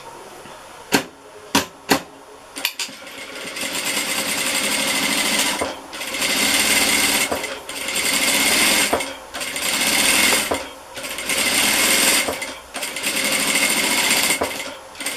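Industrial sewing machine stitching in stop-and-go runs of a second or two with short pauses as the seam is topstitched along a fabric binding. A few sharp clicks come in the first two seconds, before the machine starts.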